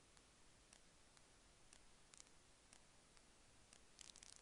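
Near silence with faint scattered clicks, and a quick cluster of clicks near the end.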